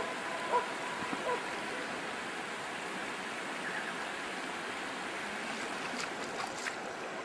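A river flowing steadily: an even rush of water. A few faint short calls sound about a second in, and a couple of light clicks come near the end.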